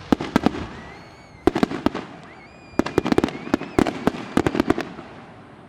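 Aerial fireworks bursting over the sea: four quick volleys of sharp bangs and crackles, with faint rising whistles between them.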